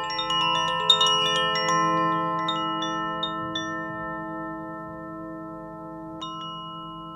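Koshi Aria wind chime, tuned to A minor: a glass bead striking the silver-soldered metal rods inside a bamboo resonance tube. A quick run of tinkling strikes over the first few seconds, then the notes ring on and slowly fade, with one last strike near the end.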